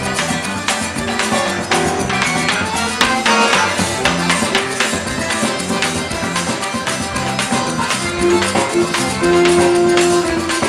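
Live forró music led by an accordion, with held notes over a steady, quick percussion beat. A long, louder held note comes near the end.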